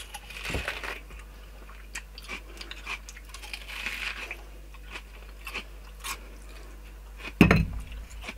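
A man biting and chewing a raw red onion, giving irregular crisp crunches. One louder thump comes near the end.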